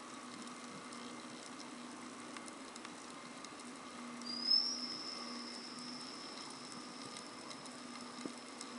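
A high whistle heard underwater, which the diver takes to sound like a dolphin: it rises quickly about four seconds in, then holds one steady pitch for about four seconds and fades. Underneath runs a constant faint crackle of clicks and a low steady hum.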